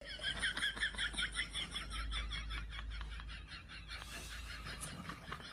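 Sphynx cat chattering: rapid high chirps, about five a second, fading out after about three and a half seconds.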